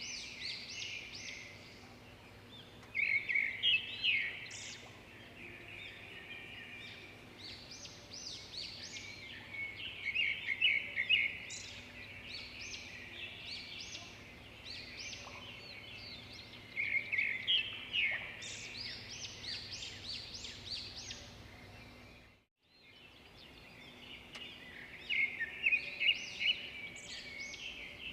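Birds singing: bouts of rapid chirps and trills, several birds overlapping, over a faint steady background of running water. The sound cuts out for a moment about 22 seconds in.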